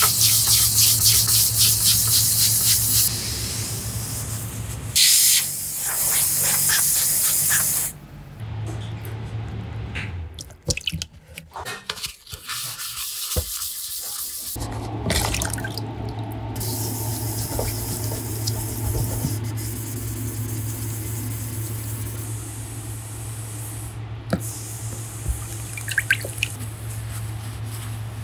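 Scratches being sanded out of a plastic motorcycle fairing panel with water: stretches of wet, rasping hiss over a steady low hum, with a quieter, broken patch about halfway through.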